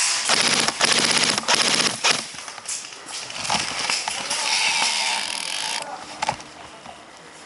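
Airsoft electric guns firing rapid full-auto bursts: two dense rattling bursts in the first two seconds, then more firing until about six seconds in.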